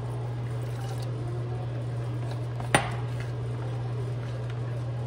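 Water poured from a glass measuring cup into a bowl of maseca and worked in with a spoon. About two and a half seconds in comes one sharp clack as the glass cup is set down on the granite counter. A steady low hum runs underneath.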